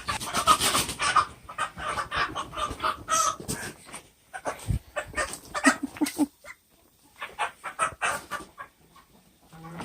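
Chickens squawking and clucking in quick, irregular calls while being chased and grabbed at, loudest and densest in the first few seconds, then in scattered shorter bursts.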